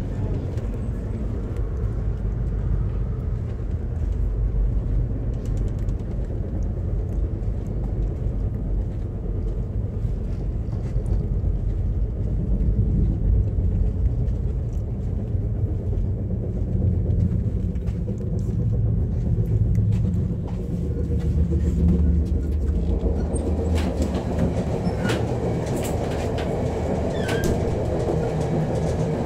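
Running noise of the VIA Rail Canadian passenger train heard from inside a car: a steady low rumble of wheels on the rails. About twenty-three seconds in, a brighter rattle and a few sharp clicks join in.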